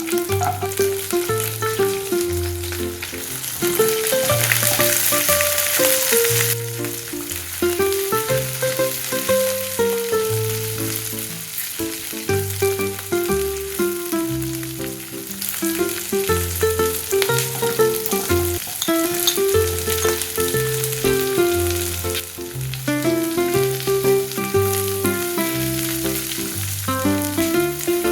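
Food frying in oil in a pan, with a steady sizzle that grows louder for a couple of seconds about four seconds in, under a background music track with a melody and bass line.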